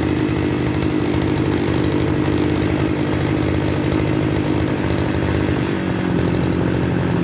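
Makita MEM302 brush cutter's 36 mm-bore engine running steadily while its carburetor screw is turned with a screwdriver. The engine note drops slightly near the end.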